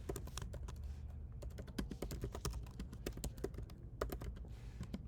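Typing on a computer keyboard: a quick, irregular run of key clicks, with one louder keystroke about four seconds in.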